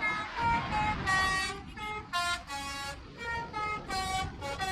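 Telolet horn playing a tune of short notes that step up and down in pitch, over steady road and wind rumble.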